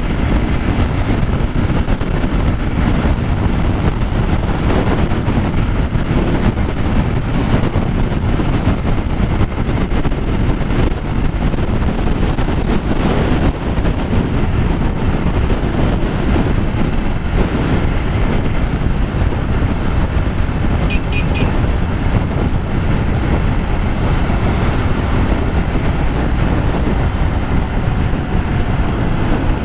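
Strong wind rushing over the helmet microphone of a Yamaha XTZ Crosser motorcycle at road speed, a steady, heavy low rumble with the bike's engine and road noise beneath.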